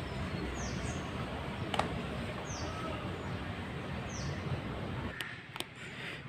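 A small bird giving short, high, falling chirps about every two seconds over a steady background hiss, with a few sharp clicks; the hiss drops away near the end.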